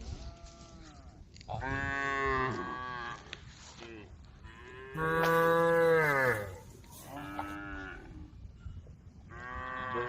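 Cows mooing: about five drawn-out calls one after another, some overlapping, the loudest about five seconds in.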